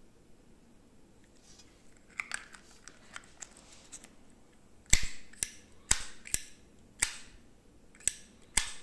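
Zippo lighter's hinged metal lid flipped open and snapped shut over and over: about seven sharp metallic clinks, several in pairs half a second apart, starting about halfway in after quieter clicking and handling of the lighter.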